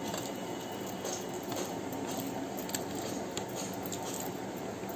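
A person eating rice by hand: faint squishy and clicking sounds of fingers and chewing, scattered over a steady background noise.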